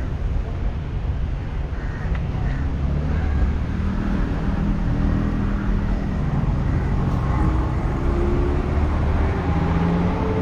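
A motor engine running over a steady low rumble, its pitch rising over the last few seconds.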